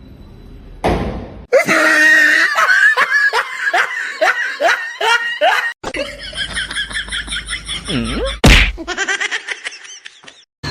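Laughter in quick repeated pulses, each dropping in pitch, with a sharp loud smack about eight and a half seconds in.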